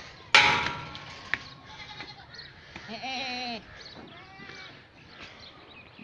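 Goats bleating, with one clear bleat of about half a second near the middle and a fainter call a little later. A sudden loud sound about a third of a second in is the loudest thing.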